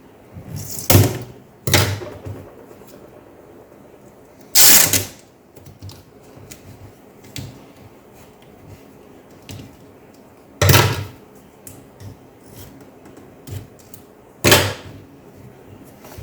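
Hand work on a laptop during a keyboard replacement: five loud, short handling noises, the one about five seconds in longer than the rest, among small clicks and rustles.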